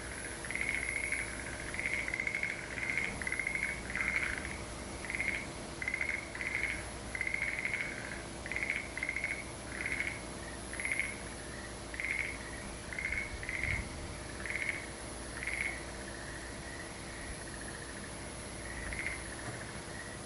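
A chorus of frogs calling in short pulsed croaks, about two a second and overlapping at first, thinning out after about sixteen seconds, over a faint steady high hiss.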